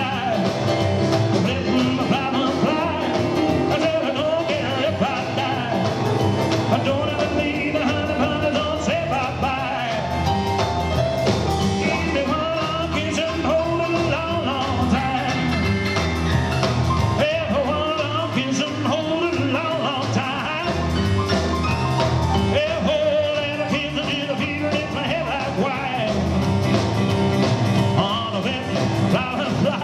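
Live rock 'n' roll trio: a man singing over piano played on a Yamaha stage keyboard, with double bass and drums.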